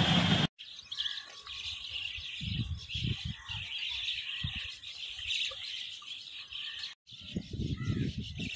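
Many birds chirping in a dense, continuous chatter of short calls, over irregular low rumbles. The sound cuts out briefly twice.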